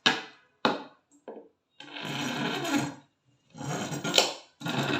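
A hand tool rasping against material in a series of separate strokes: a few short ones, then several of about a second each.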